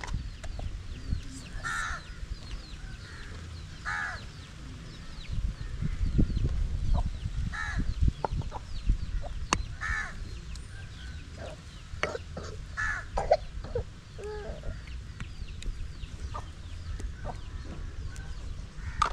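Chickens clucking, with short calls every few seconds, over faint chirping of small birds and a low rumble.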